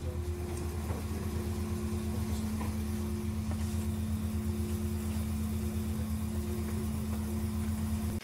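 A steady low mechanical hum, like a motor running, with a steady higher tone over it.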